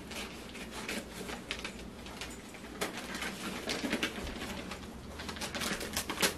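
A toy's package rustling and crinkling in irregular bursts as it is handled and tugged at by hand.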